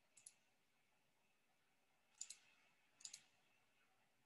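Near silence broken by three faint pairs of sharp, high clicks, double clicks spaced about one to two seconds apart.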